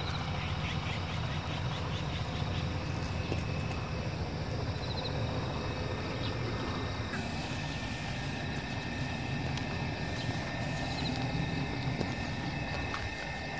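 Outdoor rural ambience: a steady low rumble throughout, with faint high chirps now and then.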